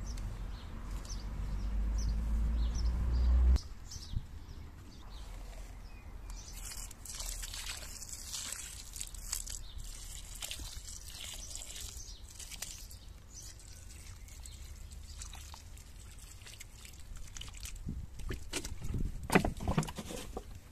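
Water poured onto garden soil around the base of seedlings, splashing and trickling for several seconds. A low rumble at first cuts off abruptly, and there are a few knocks near the end.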